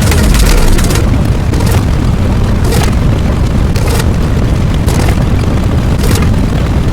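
Loud, continuous explosion-like rumble sound effect, heavy in the low end, with a short hissing burst about once a second.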